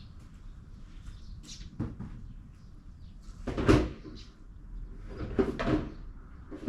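A few knocks and clatters of objects being handled, the loudest about three and a half seconds in and another pair of knocks around five and a half seconds.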